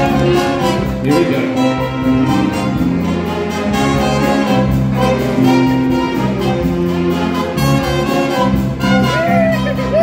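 School jazz band playing: saxophones and brass holding chords over a steady beat.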